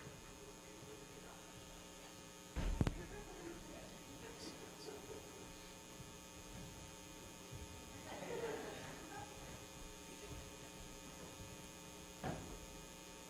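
Steady electrical mains hum on a stage recording, broken by a loud thump about three seconds in, a faint voice around the middle, and a knock near the end as a wooden chair is taken hold of.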